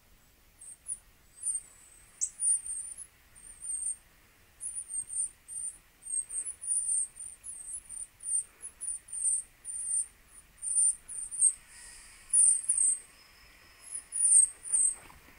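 High-pitched bird chirps and tweets from a bird video played through a tablet's small speaker, a quick string of short calls with brief gaps between them.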